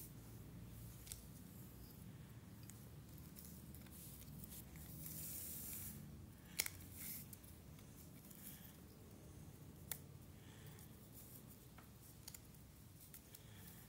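Faint rustling and light clicks of cardboard jigsaw puzzle pieces being picked up, slid and pressed into place, with a few sharper clicks, the loudest about halfway.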